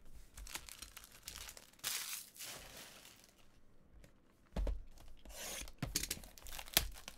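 Trading-card packaging being handled and torn open: tearing, crinkling rustles, a dull thump about four and a half seconds in, then a run of sharp crackles and clicks near the end.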